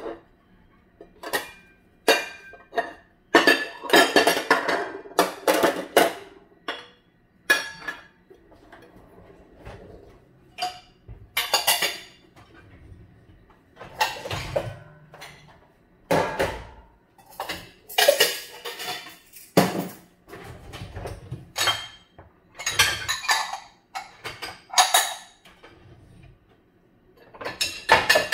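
Dishes and cutlery clinking and clattering in irregular clusters of sharp knocks, some ringing briefly, as tableware is handled and set down.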